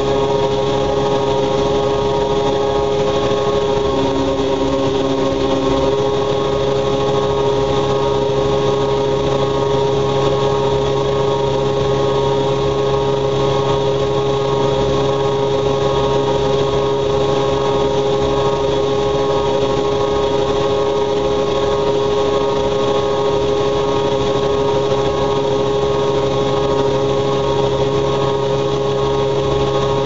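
Two Siemens Siwamat washing machines running together, their drum motors giving a steady mechanical hum with several held tones. A short extra low tone joins about four seconds in and lasts about two seconds.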